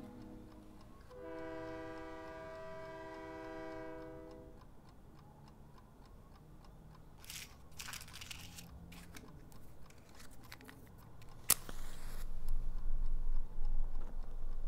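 A held horn-like chord of several steady tones for about three seconds. Then scattered clicks and rustles, a sharp strike about eleven and a half seconds in, and louder hissing noise with a low rumble as a flame is lit for a cigar.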